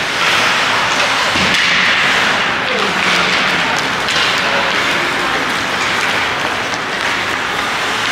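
Spectators at an ice hockey rink applauding and calling out, a steady wash of crowd noise with voices mixed in.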